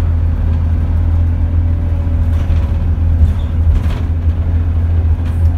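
Alexander Dennis Enviro200 MMC single-deck bus heard from inside while it drives: a steady low engine rumble with a faint whine in the middle and a few knocks from the body and fittings.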